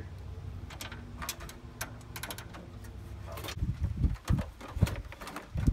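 Scattered sharp clicks and knocks of hand tools and a wire terminal being handled while a ground wire is fastened to a bolt, then several low thumps in the second half.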